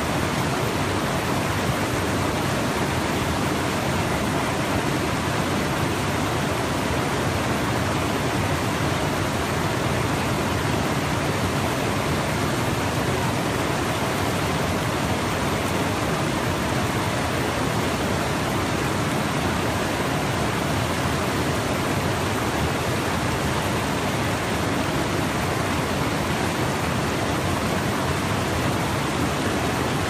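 River water cascading over rock ledges in whitewater falls: a loud, steady, unbroken rush of falling water.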